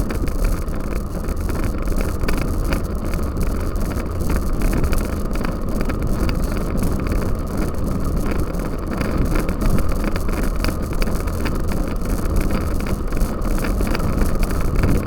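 Wind rumbling steadily on the microphone, mixed with the rattling and tyre noise of a cyclocross bike ridden over rough ground, with many small clicks and knocks.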